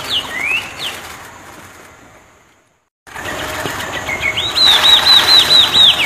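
A songbird singing: a few quick gliding whistled notes that fade out into a brief silence about two and a half seconds in. The sound returns with a hiss and near the end a fast run of about ten sharp, repeated whistled notes.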